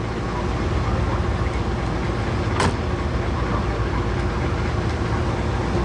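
Steady low rumble of idling diesel engines, with one sharp click about two and a half seconds in.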